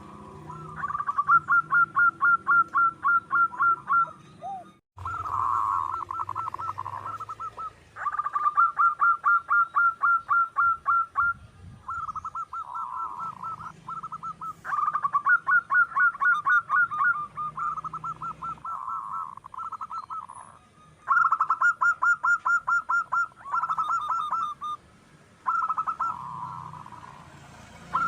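Zebra dove (perkutut) singing: phrase after phrase of quick, rapidly repeated cooing notes, each phrase lasting a few seconds with brief pauses between.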